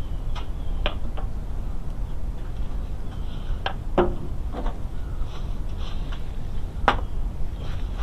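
Handling noise on a moving camera: a steady low rumble with scattered sharp clicks and knocks, the loudest about four seconds in and again near seven seconds.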